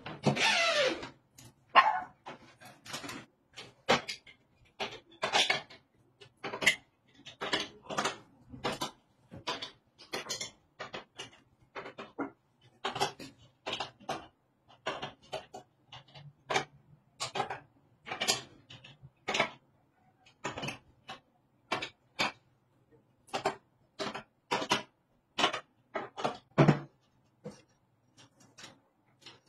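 A power drill running briefly at the start, then a dog barking repeatedly in short bursts, about two a second, over a faint steady hum.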